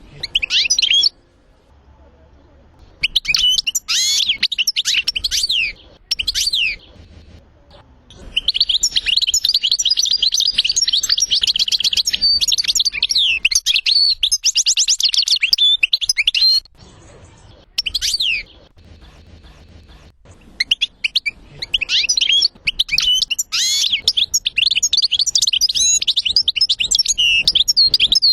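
European goldfinch singing in fast phrases of twittering, trills and liquid whistled notes, broken by short pauses, with one long unbroken phrase of about eight seconds in the middle. It is a song-tutor recording meant for teaching the song to caged goldfinches.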